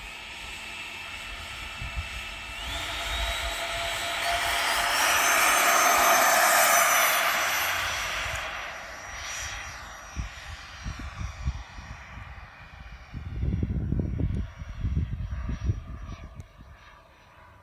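Freewing F-15 RC jet's electric ducted fans spooling up, the whine stepping up in pitch twice as the throttle opens for the takeoff roll. It is loudest about six seconds in, then fades as the jet climbs away. Low rumbling bursts on the microphone come near the end.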